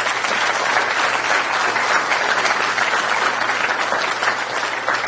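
Audience applauding at the close of a talk, many hands clapping steadily.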